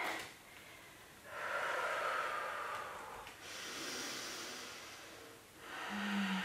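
A woman's audible breathing up close: two long breaths of about two seconds each, then a short voiced hum near the end.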